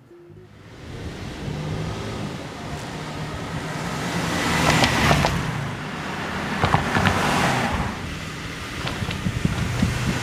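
Cars driving past one after another, each passing swelling and fading, with sharp ticks as the tyres cross the pneumatic road tubes of a traffic counter.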